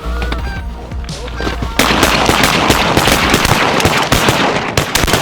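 Canada geese honking overhead, then about two seconds in a rapid volley of shotgun fire from several hunters at once, the shots overlapping densely for about three seconds.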